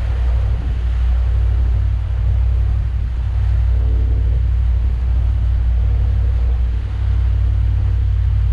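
Steady low drone of a 7.4-litre (454) MerCruiser inboard V8 pushing the cruiser along, with a hiss of wind and water over it. A brief faint tone sounds about four seconds in.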